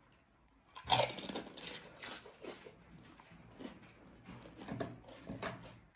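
A person biting into a crisp pani puri shell filled with spiced water: one loud crunch about a second in, then chewing with a string of smaller crunches and crackles.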